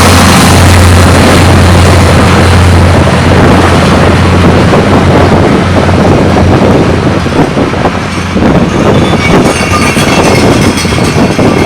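Diesel locomotives 2TE116U and 2TE10M double-heading a train up a grade: a heavy, steady engine drone for the first few seconds, then the train's cars rolling past with wheel clatter and brief thin squeals near the end.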